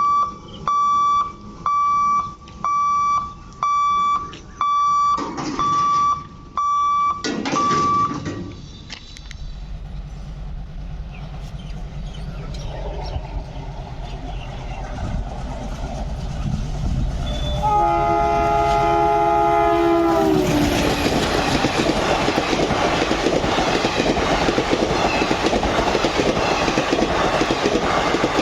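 An electronic beeper sounds about once a second, eight times. Then the Tebhaga Express approaches with a rising low rumble, sounds its multi-tone horn for about three seconds with the pitch dropping as it ends, and runs past with a loud steady clatter of wheels on the rails.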